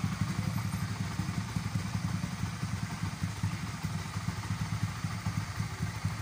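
Honda RS150R's single-cylinder 150 cc engine idling steadily.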